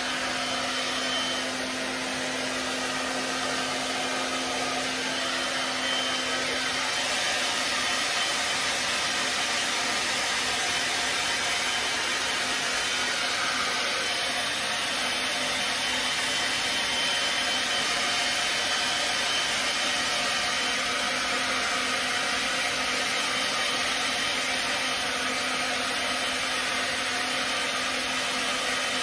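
Handheld hair dryer running steadily with an even rushing hiss, blowing over a wet dog's coat to dry it. A low hum under the hiss stops about seven seconds in.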